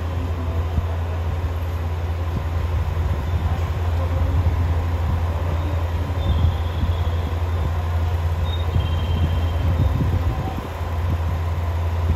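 Two-car diesel railcar standing at the platform with its engine idling: a steady low drone.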